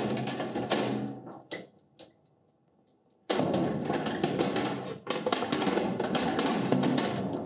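Metal oven rack and aluminium baking tray clattering and scraping against each other as the tray is slid into a countertop oven. There are two stretches of rattling, the first ending about two seconds in and the second, longer one starting after a short pause.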